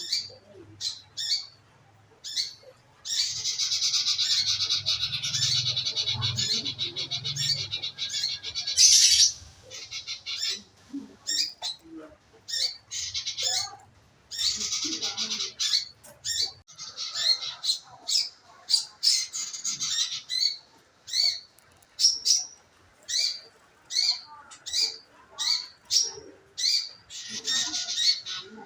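A manggaran, a songbird, calling over and over: short sharp chirps about once or twice a second, broken by several runs of fast scratchy chattering lasting a few seconds each. It is played as a lure recording to get a caged bird of the same kind to sing.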